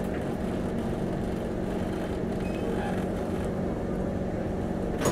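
Singapore MRT train running, heard from inside the carriage: a steady low rumble with an even hum. There is one sharp click near the end.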